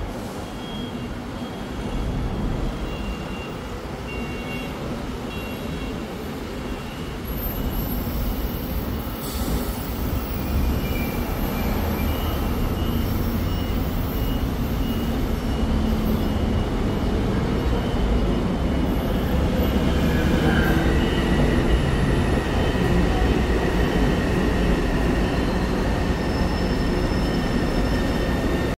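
Taipei Metro electric train pulling into an elevated station and braking to a stop. Its rumble builds over about ten seconds, peaks a little past two-thirds of the way through, and a steady high whine joins it for the last several seconds.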